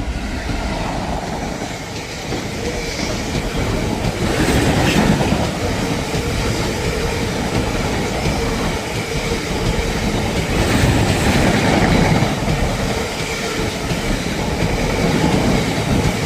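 Class 66 diesel locomotive 66659 and its train passing, a continuous rumble with the wheels clattering rhythmically over the rail joints, swelling louder twice.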